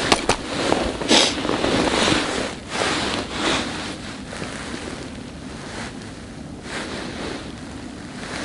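Wind buffeting the microphone, a steady rushing noise broken by short rustles and clicks, louder in the first few seconds.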